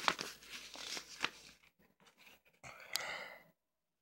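Glossy paper of a CD booklet rustling and crinkling as it is handled and its pages are turned, with a few sharp clicks. It cuts off suddenly about three and a half seconds in.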